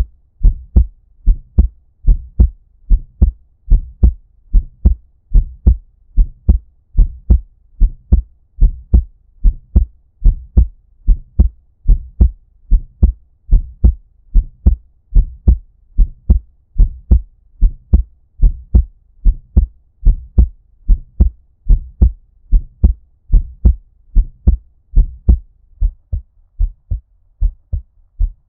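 Heartbeat at a normal resting rate: a steady lub-dub of paired low thumps, a little over one beat a second. It is muffled and dull, as if heard underwater or with cupped ears. The beats grow slightly softer near the end.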